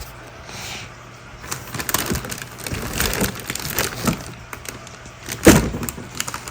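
Prop parts in plastic packaging being handled and pulled from a cardboard box: irregular crinkling and clattering, with one loud knock about five and a half seconds in.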